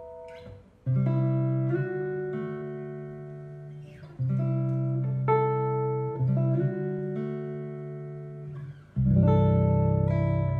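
Archtop jazz guitar in CGDGBE tuning, with low C and G strings, amplified through a Henriksen Blu amplifier and Ray cabinet, playing a slow solo chord-melody. Full chords with deep bass notes are struck about a second in, around four seconds in and near nine seconds in, the last the loudest. Each chord is left to ring and fade while melody notes move over it.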